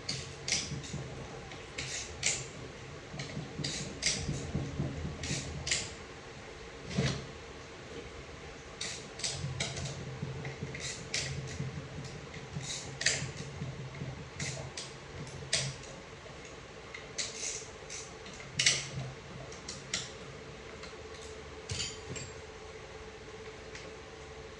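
Metal hand tools clicking and clinking irregularly, in small clusters, as the valve-body bolts of an 8HP45X automatic transmission are worked loose with a T40 Torx bit.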